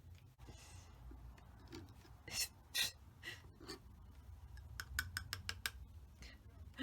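Faint scrapes and a quick run of light taps from a palette knife mixing oil paint on a palette.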